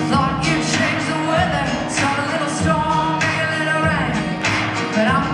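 Live country band playing, with a sung lead vocal over electric guitars and a drum kit beating steadily.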